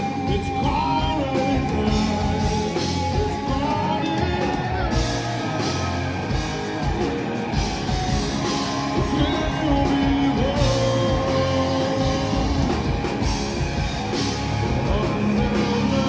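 Live rock band playing: two electric guitars, bass guitar and a drum kit, with a male lead vocal singing over them.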